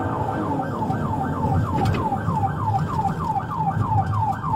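Police patrol car siren in fast yelp mode, sweeping up and down in pitch about three and a half times a second, heard from inside the car over the engine and road rumble.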